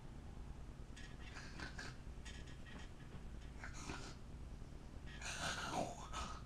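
A person snoring and snorting in separate bursts, four times, the last and longest near the end sliding down in pitch.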